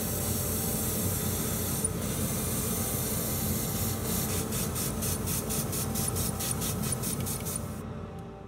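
Gravity-feed airbrush spraying with a steady loud hiss of air. About halfway in it breaks into rapid short pulses, about five a second, then stops shortly before the end.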